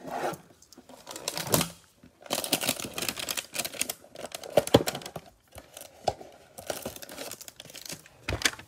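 Gloved hands tearing open a trading-card hanger box and its plastic-wrapped cards: rustling, crackling tears and crinkling wrapper. The busiest stretch starts about two seconds in, with more rustling near the end.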